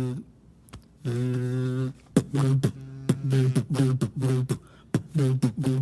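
Beatboxer making vocal sound effects: a held hummed bass note, then a quick rhythm of sharp mouth clicks, each followed by a short falling-pitch vocal note, alternating with held hums.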